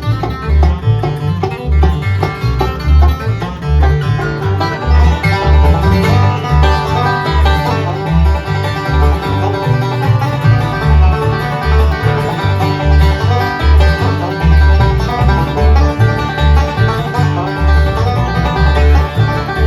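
Live bluegrass band playing an instrumental break: banjo picking over guitar and a steady bass beat about twice a second.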